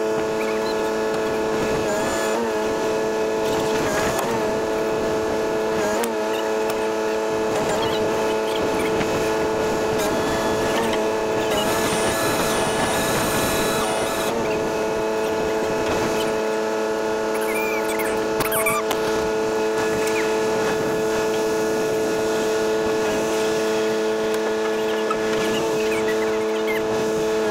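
An engine running at a steady speed, a constant hum made of several held tones.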